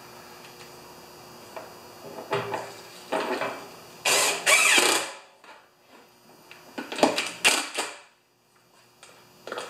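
Cordless drill running in several short bursts, driving the screws that hold a generator's panel on. The longest and loudest run comes about four seconds in.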